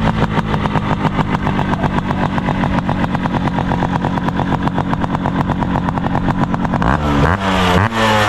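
Yamaha RXZ's single-cylinder two-stroke engine idling with a fast, even exhaust pulse, then blipped twice near the end, the revs rising sharply each time.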